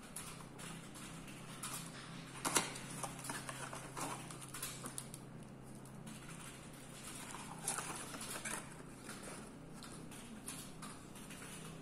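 Hands handling a cardboard box, a plastic-wrapped stack of compressed cellulose sponges and flat sponge pieces on a paper sheet: scattered light taps, rustles and crinkles, the sharpest tap about two and a half seconds in. A faint steady hum runs underneath.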